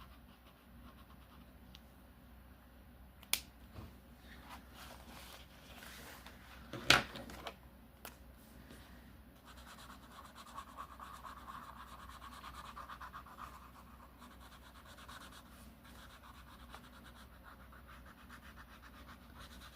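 Faint rapid back-and-forth scratching of colouring strokes on a colouring-book page, densest from about halfway in, with a sharp click about 3 seconds in and a louder knock about 7 seconds in.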